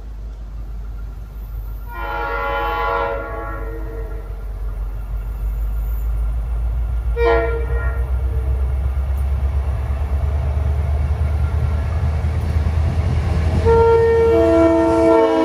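Locomotive air horn on an EMD GP40PH-2, not the usual K5LA, sounding a long blast, a very short one, then a long blast whose chord drops in pitch as the locomotive passes, in a grade-crossing pattern. Underneath, the rumble of its EMD 645 diesel engine grows louder as the train approaches.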